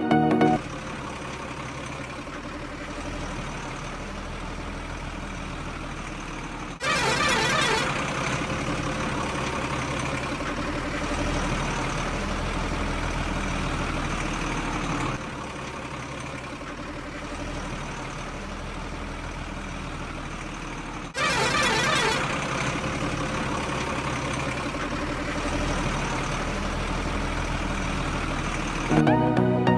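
Heavy truck engine running steadily, broken twice by a loud hiss lasting about a second.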